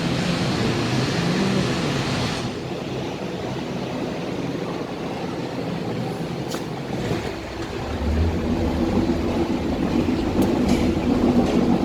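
Steady vehicle rumble. A high hiss drops away about two and a half seconds in, and a deeper hum grows louder near the end.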